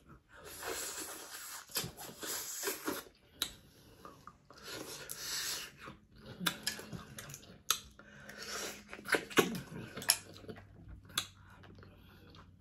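Close-miked eating of Dungeness crab in butter sauce: chewing in several stretches of a second or so, with sharp clicks now and then, about half a dozen in all.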